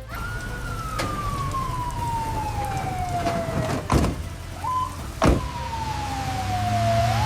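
A single whistling tone slides slowly down in pitch for about four seconds, a sharp crack cuts in, a short tone sounds, a second crack follows, and then another long falling whistle bends back up near the end, all over a low rumble.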